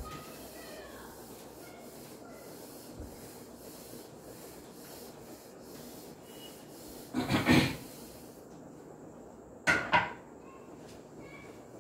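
Felt whiteboard duster rubbing across a whiteboard, with one louder wiping stretch about seven seconds in. Near the ten-second mark there are two short knocks close together.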